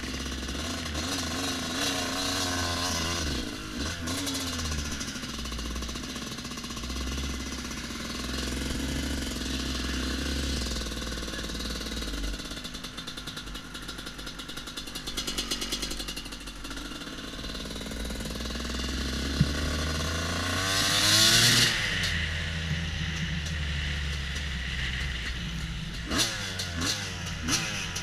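Dirt bike engine, the Husqvarna WR250 two-stroke enduro, heard from a camera on the bike while it is ridden, with wind hiss; the revs rise and fall with the throttle, climbing to the loudest peak about three quarters of the way in. A few sharp knocks near the end.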